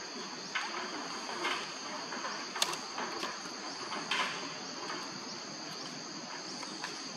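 A steady, high-pitched insect chorus. A few brief scraping rustles and one sharp click about two and a half seconds in sound over it.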